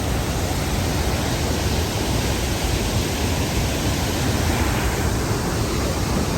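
Loud, steady roar of a large waterfall running in full spate after heavy rain, heard up close.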